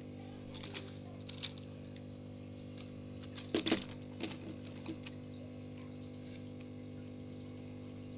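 A few light clicks and taps from handling a plastic toy, loudest about three and a half seconds in, over a steady low hum.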